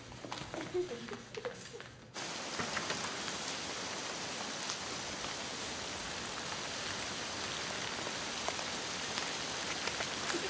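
Steady rain falling, with scattered small drop ticks. It starts abruptly about two seconds in, after a moment of faint indoor sounds.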